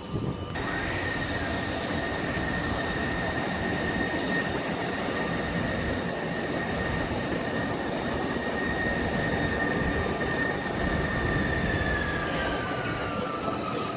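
Embraer ERJ-145 regional jet's turbofan engines running, a steady high whine over a broad rush; near the end the whine slides down in pitch as the jet goes past.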